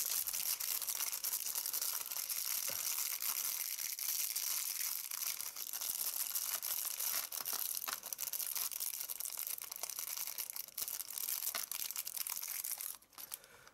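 Thin clear plastic parts bag crinkling and crackling steadily as fingers handle it and pull it open; the crackling stops near the end.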